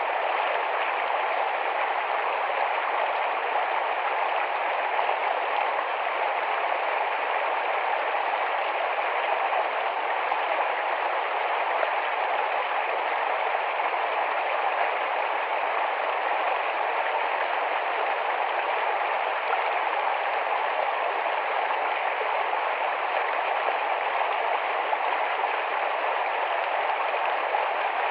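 Small, fast-flowing forest stream rushing and babbling over rocks in a steady, unbroken rush of water.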